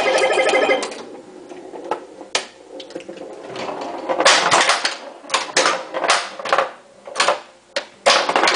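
Bally Voltan Escapes Cosmic Doom pinball machine in play: irregular clicks and clacks of the ball, flippers and playfield targets. A buzzing electronic game sound plays in the first second and again near the end.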